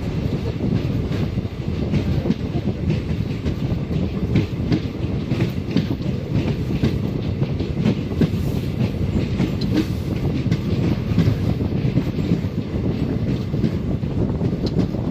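Meenakshi Express train running along the line: a steady low rumble with irregular clacks of the wheels over the rails.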